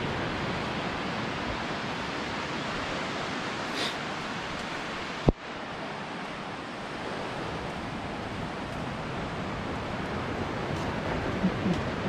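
Steady wash of sea surf and wind, with one sharp click about five seconds in.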